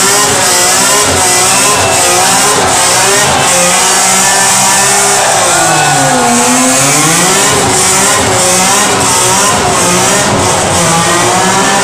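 Car engine revving hard and loud at high revs, echoing in a road tunnel. About six seconds in the revs drop sharply and then climb back up.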